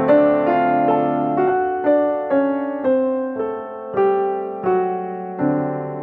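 Background piano music: a slow, gentle melody of single notes over held chords, each note struck and fading, about two notes a second.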